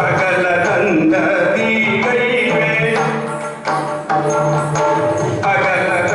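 Yakshagana music: a singer's wavering, melismatic voice over a steady held drone, with occasional drum strokes.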